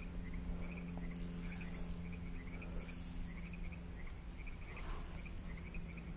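Night insects chirping: high, rapidly pulsed trills that come back about every second and a half, with lighter, lower chirps between them. A steady low hum runs underneath.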